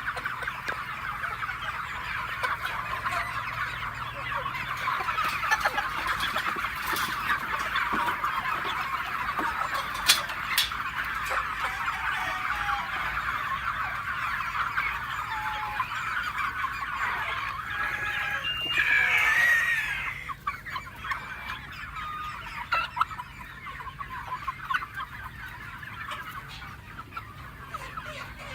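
A flock of free-range chickens calling and clucking in a dense, overlapping chatter that thins out after about two-thirds of the way through. One louder, drawn-out call, a rooster crowing, comes just before the chatter thins.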